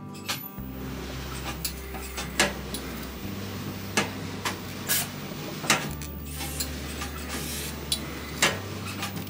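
Industrial steam iron and padded shoulder pressing board in use: a scattered run of sharp clicks, knocks and short hisses, about seven in all, over soft background music.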